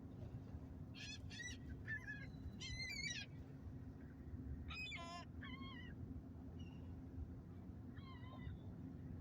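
A series of short, high-pitched, wavering animal calls, several in quick succession, over a steady low hum.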